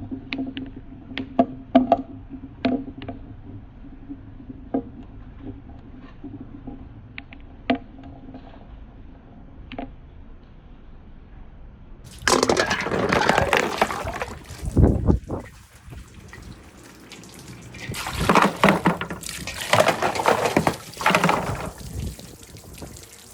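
Marbles rolling along a marble-run track with scattered sharp clicks as they knock together and against the track. About halfway through, this gives way to water rushing down a rain-gutter slope in loud surges.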